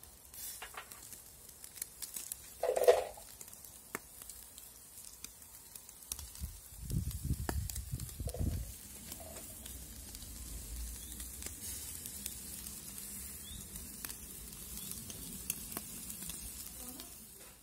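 Lamb shashlik skewers sizzling and crackling on a grill: a steady hiss dotted with small pops. A brief louder sound about three seconds in, and a low rumble a little before halfway.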